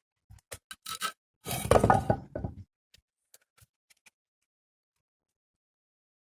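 A few light knocks, then about a second of louder scraping and rattling, then a few faint ticks.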